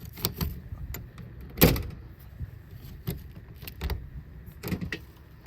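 A series of knocks and clatter from things being handled, about six in all, the loudest about one and a half seconds in.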